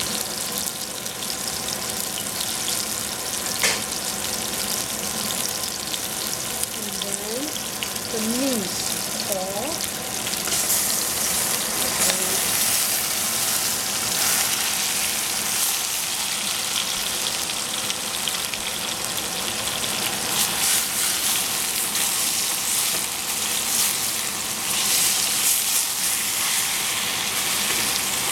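Oil sizzling in a stainless saucepan with chopped scallions and whole spices frying. About a third of the way in the sizzle grows louder as raw ground meat goes into the hot oil, and a wooden spoon stirs and breaks it up.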